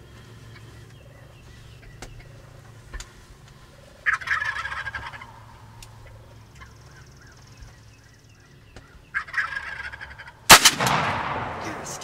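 Wild turkey gobbler gobbling twice, a few seconds apart, then a single loud shotgun blast that echoes briefly as a gobbler is shot.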